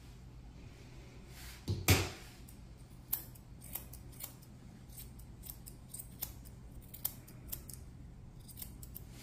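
Grooming scissors snipping the fur under a cat's chin: short, sharp snips, irregular, about one or two a second, starting about three seconds in. About two seconds in there is one louder thump.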